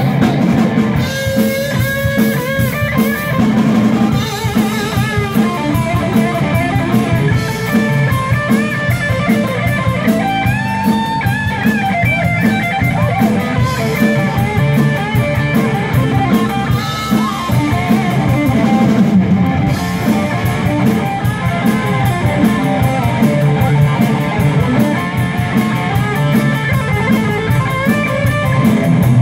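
Live rock band playing: amplified electric guitar and bass guitar over a drum kit.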